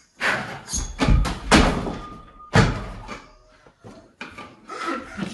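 A free-standing dance pole giving way and coming down with a man on it: several heavy thuds and knocks within the first three seconds as the pole and body hit the carpeted floor, then quieter shuffling.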